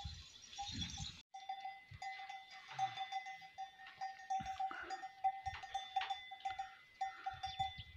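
Bells on a string of walking camels, ringing in a quick, uneven patter. Gusts of wind thump on the microphone.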